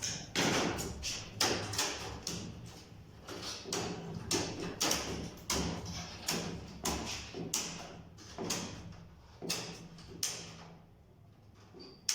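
Irregular series of short knocks and scrapes, roughly one or two a second, over a steady low hum, thinning out near the end.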